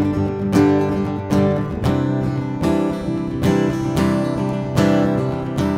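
Background music: an acoustic guitar strumming sustained chords in a steady rhythm.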